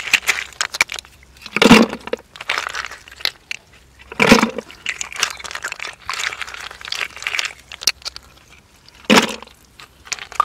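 Hands working through wet mud, squelching and crackling as mud snails are felt for and pulled out, with three louder wet squelches about 2, 4 and 9 seconds in.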